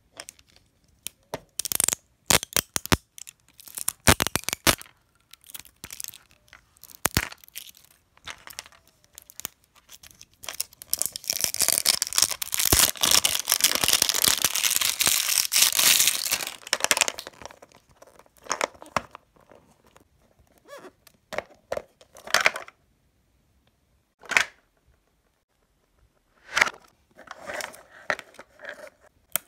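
Outer wrapping of a golden Mini Brands capsule ball being torn and peeled off by hand: irregular crinkling and sharp clicks, with a long stretch of continuous tearing and crackling around the middle, then scattered crackles as the capsule's segments are pulled open.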